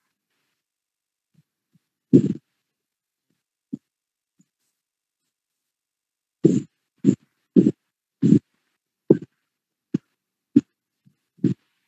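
A dog barking in short, sharp barks: one about two seconds in, then a run of about eight barks, roughly one every 0.7 s.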